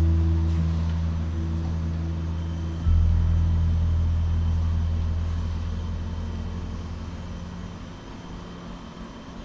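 Background music of deep, sustained bass notes. A new low note comes in about three seconds in and slowly fades away.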